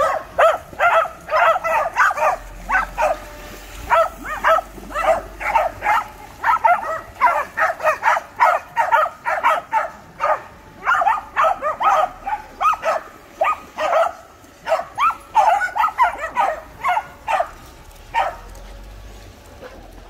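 Welsh Corgis barking: long runs of sharp, yappy barks, about three a second, with brief pauses, dying away near the end.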